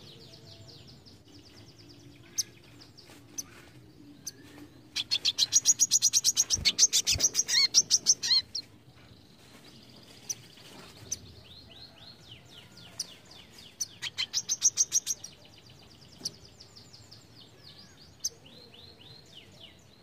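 Male brown-throated sunbird singing. It gives two loud, rapid trills of sharp, high notes, one about five seconds in and one near fourteen seconds, with scattered single chirps and short downward-sweeping notes between them.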